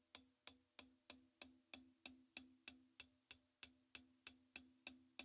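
Closed hi-hat struck with the tip of a drumstick in a steady stream of single strokes, about three a second, some a little louder than others. The strokes are placed at different spots across the top cymbal, which changes the tone from stroke to stroke.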